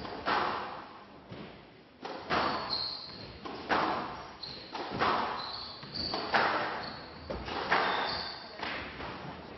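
Squash ball struck by rackets and hitting the court walls in a rally: repeated sharp cracks, one roughly every two-thirds of a second, echoing in a large hall. Short high squeaks of players' shoes on the court floor come between the shots.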